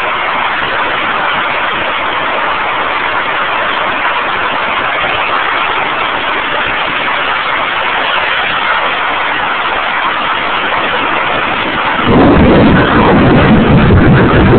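Steady hiss of heavy rain during a thunderstorm, then about twelve seconds in a sudden loud deep rumble of thunder breaks in and keeps rolling.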